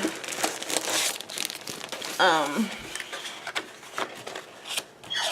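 Paper and packaging crinkling and rustling in irregular crackles as a pack of patterned scrapbook paper is handled and leafed through. A brief vocal sound about two seconds in.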